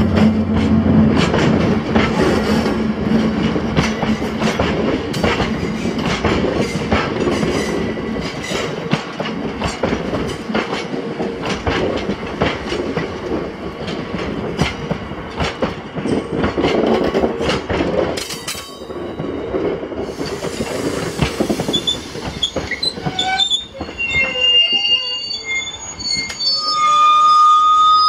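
Bogie tank wagons of a freight train rolling slowly past, their wheels clicking rapidly over the rail joints with a steady rumble. Over the last several seconds high-pitched squeals come from the wheels as the train slows toward a stop.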